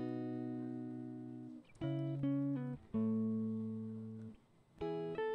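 Quiet background music of plucked-string notes, some held and fading away, with a quicker run of notes near the end.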